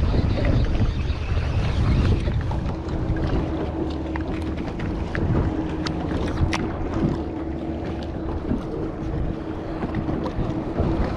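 Wind buffeting the microphone on a small fishing boat, with water noise around the hull. A steady hum comes in about three seconds in, and a few sharp clicks fall in the middle.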